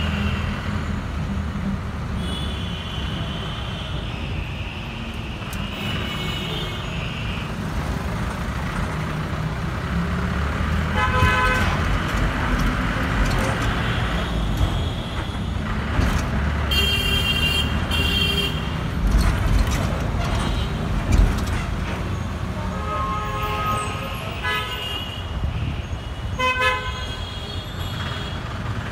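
Busy road traffic with a steady low rumble and vehicle horns honking on and off, several short beeps and a few longer blasts.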